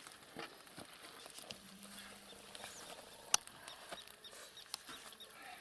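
A heap of freshly netted small fish, mostly minnows, wriggling and slapping on a net as hands rummage through them: faint scattered wet patters and small clicks, with one sharper click about three seconds in.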